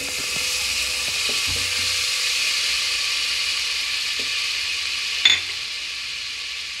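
Butter sizzling as it melts in a hot metal pot, a steady hiss, with a single sharp tap about five seconds in.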